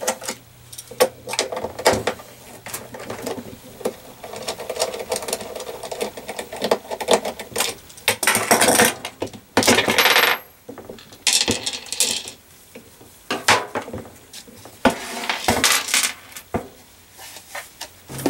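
Irregular metal clinks, knocks and short scraping rattles as a nut driver unfastens the handle of a Cold Steel Soldier's Targe buckler, with the loose hardware and the handle knocking against the shield.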